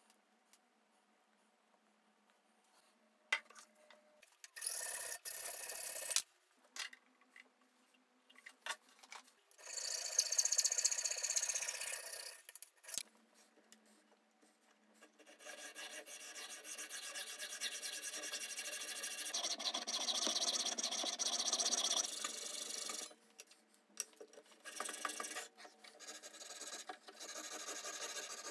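A hacksaw blade rasping through and along a thin strip of softwood, in several bouts of strokes. The longest and loudest bout comes in the middle.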